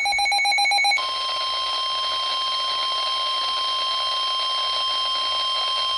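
NOAA Weather Radio sounding the alert for a flash flood warning: about a second of rapid buzzing SAME data tones, then the 1050 Hz warning alarm tone, one steady tone held about five seconds that cuts off suddenly near the end.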